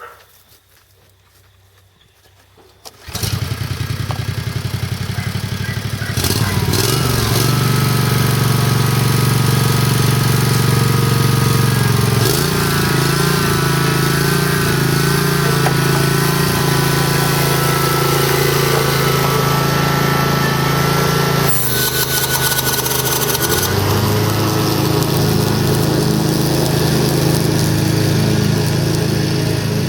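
Kawasaki FH541V 17 hp V-twin engine of a Scag 52 Advantage commercial walk-behind mower starting up about three seconds in, then running. It comes up to a steady higher speed about six seconds in, and its tone shifts around the middle and again near the end as the machine is operated.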